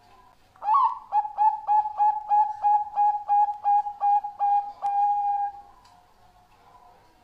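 Zebra dove (Bangkok-strain perkutut) singing: a quick, even run of about fourteen short coos, each rising at its start, ending in one longer held note.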